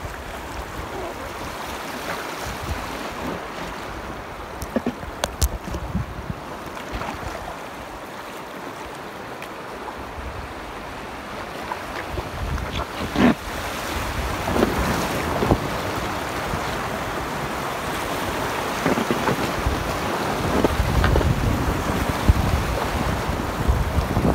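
River water rushing and splashing over rocks in shallow riffles, heard from just above the surface, with wind rumbling on the microphone, strongest in the last few seconds. A few short sharp sounds stand out, the loudest about 13 seconds in.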